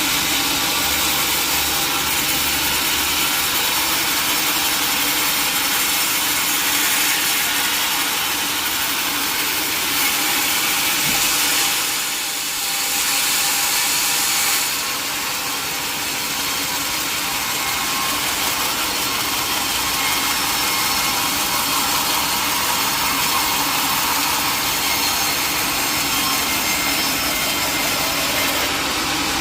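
Sawmill blade cutting through a mahogany log: a steady cutting noise that eases briefly about twelve seconds in.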